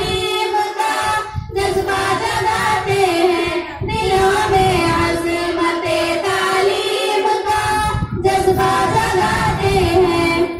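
A group of schoolgirls singing an Urdu taraana together into microphones, in long held phrases broken by three short pauses for breath.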